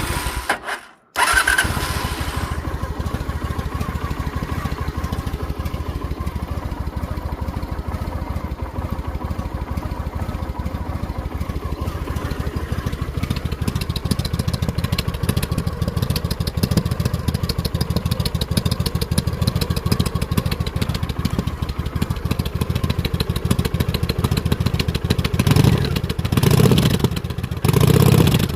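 Honda VT750DC Shadow V-twin through its stock exhaust: started, catching about a second in, then idling steadily, with a few blips of the throttle near the end.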